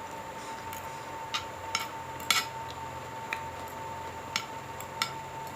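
Spoon clinking against a plate while eating fried rice: about six separate sharp clinks at uneven intervals, the loudest a little past two seconds in, over a faint steady high hum.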